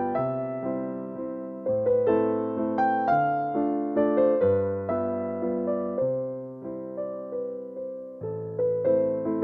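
Background piano music: a slow, gentle piece of single notes and chords, each struck and dying away, about two a second.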